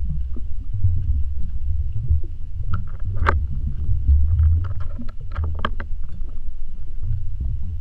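Low, churning underwater rumble picked up by a submerged camera, with scattered clicks and ticks. The sharpest click comes about three seconds in, and a cluster of clicks follows a couple of seconds later.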